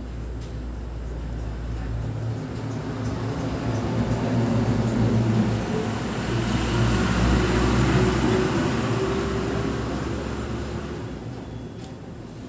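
A vehicle passing by: a rumble with a low hum that builds over several seconds, is loudest a little past the middle, then fades away near the end.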